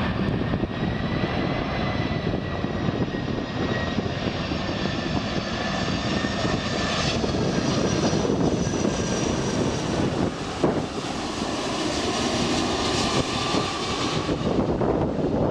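McDonnell Douglas MD-11F freighter's jet engines running as it comes in to land: a loud steady rush with high, steady fan whines over it. Gusty wind buffets the microphone.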